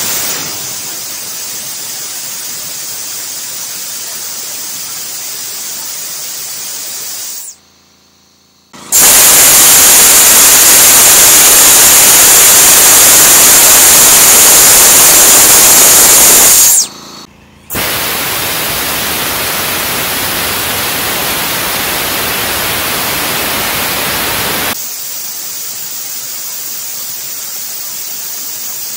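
Compressed air jetting steadily through a small homemade arcjet thruster's nozzle, a loud even hiss. It breaks off twice, about 7 and 17 seconds in, and comes back at a different loudness each time, loudest in the middle stretch.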